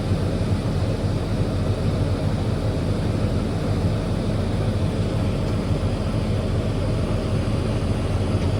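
Diesel engine of heavy harvest machinery, a combine or the tractor pulling the grain cart, running steadily at working speed with a constant low drone.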